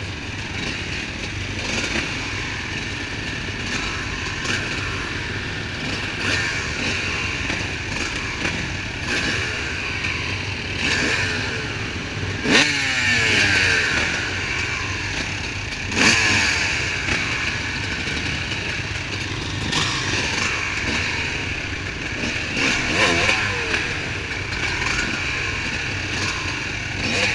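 Several motocross bike engines idling together on a start line, with throttles blipped into short revs that fall away now and then.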